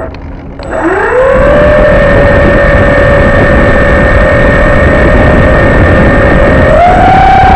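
Propeller motors of a radio-controlled Canadair CL-415 model flying boat spooling up about a second in to a steady whine, then rising in pitch near the end as the throttle is opened further.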